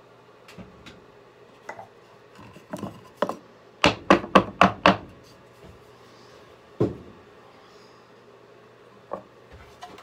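Wooden knocks and clatter of cut poplar boards being handled: a few light taps, then a quick run of about six loud knocks about four seconds in, and one more knock near the seven-second mark.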